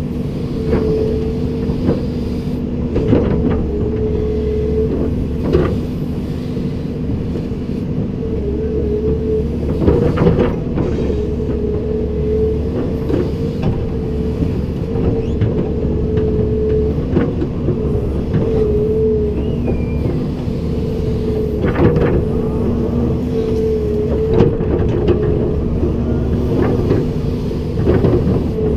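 Komatsu PC290-10 hydraulic excavator running steadily with a held mechanical tone that wavers slightly now and then, and about a dozen sharp clanks scattered through it.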